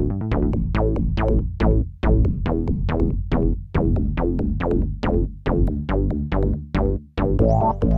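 Electronic background music: a quick, even run of struck synth notes, about four or five a second, over a heavy bass and drum-machine beat. A higher gliding synth line comes in near the end.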